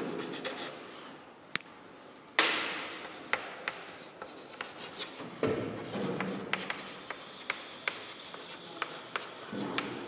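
Chalk writing on a blackboard: scratchy strokes with many sharp taps as the chalk meets the board, one louder scraping stroke about two and a half seconds in.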